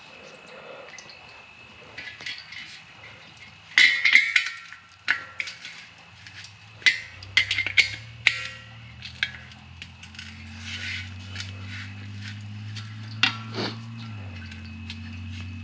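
Pieces of scrap metal clinking and clanking as they are handled and dropped, with a burst of sharp metallic hits about four seconds in and scattered clinks after. A low steady hum sets in about seven seconds in.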